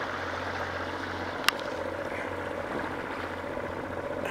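A boat's motor running steadily as the boat moves along, with a single sharp click about a second and a half in.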